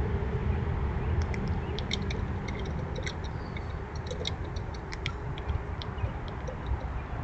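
Irregular sharp, high clicks and ticks from black squirrels cracking seed shells as they feed, over a steady low rumble.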